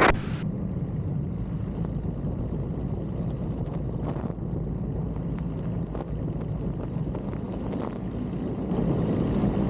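Piper J3 Cub's engine and propeller running steadily on final approach, heard from the cockpit as a low drone with wind noise. The engine grows louder near the end.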